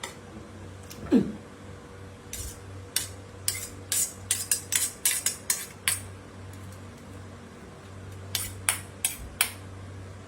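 Cutlery clinking against plates and dishes during a meal: a string of sharp clicks in two bunches over a steady low hum. A short falling squeak about a second in is the loudest sound.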